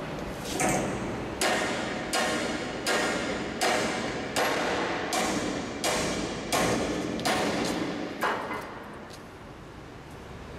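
A sledgehammer strikes a stud-welded steel V-anchor about eleven times, a blow a little under every second, each with a short metallic ring. The blows bend the anchor over flat against the steel plate in a hammer test of the weld, which holds.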